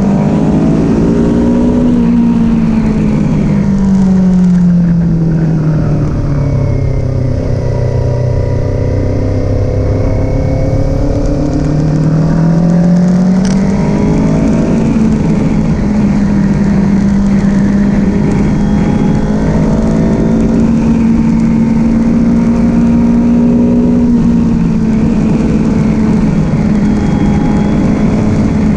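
Kawasaki Z400 motorcycle's 399 cc parallel-twin engine running under load. Its pitch climbs, then slowly sinks, climbs again around the middle, and holds almost steady through the second half.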